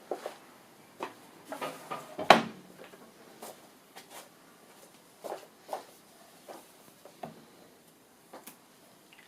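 Irregular knocks and clunks of heavy timber pieces being handled and set against each other, about a dozen sharp hits, the loudest a little over two seconds in.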